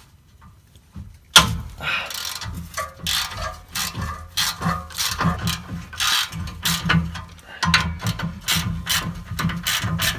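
Socket ratchet wrench clicking in quick, uneven runs while loosening exhaust bolts, starting with a sharp knock about a second and a half in.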